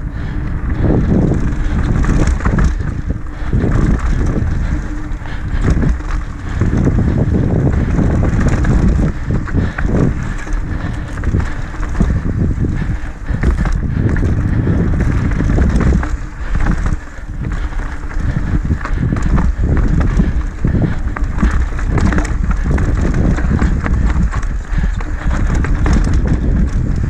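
Wind buffeting the mic on a mountain bike riding fast down dirt singletrack, with tyres rolling over dirt and the bike rattling and knocking irregularly over bumps.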